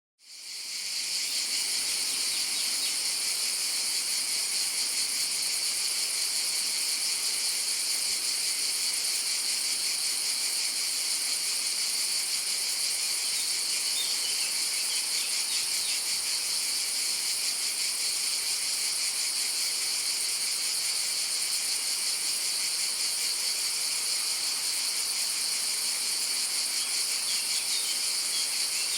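A chorus of cicadas buzzing continuously at a high pitch, fading in over the first second. Faint bird chirps come through briefly about halfway and near the end.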